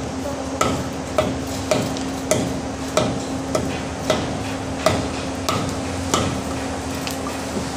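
Mason's steel trowel tapping on freshly laid masonry blocks, setting them into the mortar. The taps are sharp and regular, about one every half second to second, each with a short metallic ring.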